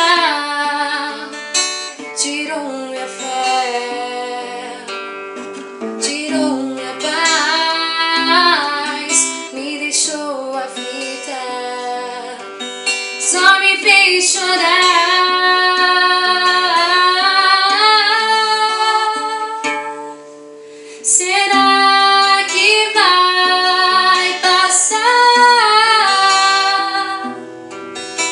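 A woman singing a Portuguese-language gospel hymn to acoustic guitar accompaniment. The music drops briefly about two-thirds of the way through, then resumes at full level.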